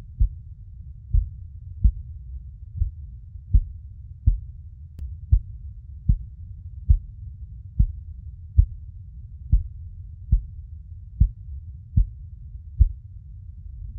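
Mother's heartbeat: a soft low thump repeating evenly about every 0.8 seconds (around 75 beats a minute), over a steady low rumble.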